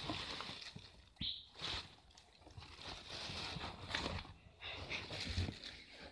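Irregular rustling and scuffing with a few soft bumps, from bodies moving on bedding and the phone being handled.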